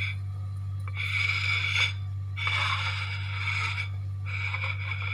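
Ceramic plate scraping across a tabletop as it is turned by hand, in three strokes about a second long each, over a steady low hum.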